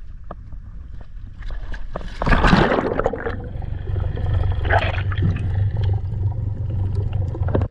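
Water splashing and gurgling, over a steady low rumble. There is a loud splashing surge a little over two seconds in and a smaller one near five seconds.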